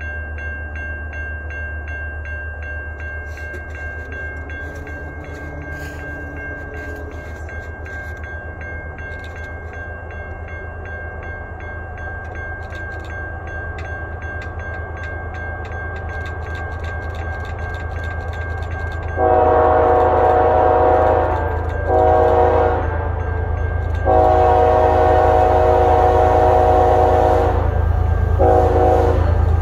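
An approaching freight train led by a BNSF ES44C4 diesel-electric locomotive: its low engine rumble grows steadily louder. A crossing bell rings with a steady high tone for about the first twenty seconds. About two-thirds of the way in, the locomotive's air horn sounds a long blast, a short one, then another long one, with a further blast starting near the end, the warning pattern for a grade crossing.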